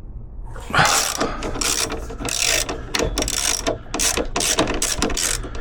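Hand ratchet wrench clicking through about nine quick back-strokes, starting about a second in, as a bolt is backed off.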